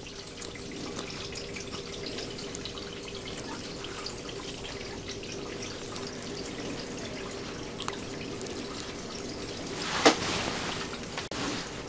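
Faint small clicks and handling noises as small 3D-printed polycarbonate-carbon fibre idler parts and a metal sleeve are fitted together by hand, over a steady low hum. A louder brief rustle comes about ten seconds in.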